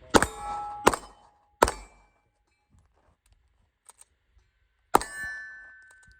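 Four pistol shots: three in quick succession within about a second and a half, then one more about three seconds later. Each is followed by a metallic ringing that hangs on for a moment.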